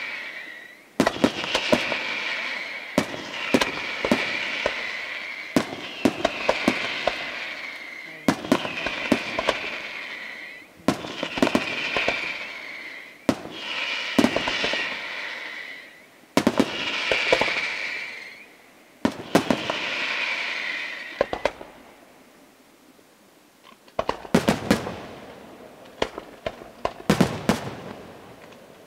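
Aerial firework shells bursting in quick succession, a volley about every two seconds, each a cluster of sharp bangs trailing off in a fading crackling hiss. After a brief lull near the end, another run of bangs.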